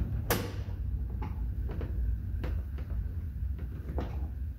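A sharp click a moment in, then several fainter clicks and taps as a screwdriver works screws out of a truck door's armrest, over a steady low hum.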